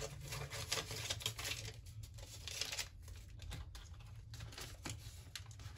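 Paper banknotes rustling in the hands and crinkling against a clear plastic cash envelope as the bills are slid into its pocket, in irregular short rustles.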